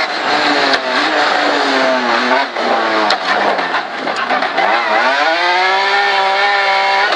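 BMW S54 straight-six in an E30 rally car, heard from inside the car and revving hard. Its note sinks in the middle under a rush of noise, then climbs back about five seconds in and holds a steady high pitch.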